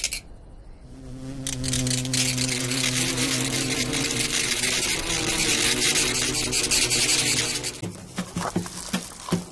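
Cartoon sound effect of a swarm of grasshoppers buzzing: a steady droning hum under a dense, crackling high whir, cutting off about eight seconds in, followed by a few light ticks.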